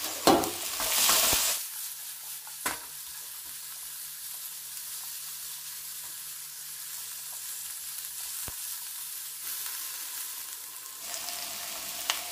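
Sliced onions frying in a wok while being stirred with a spatula. The stirring and sizzling are loudest for the first second and a half, then settle into a steady soft sizzle, with a small knock of the spatula about 2.7 seconds in.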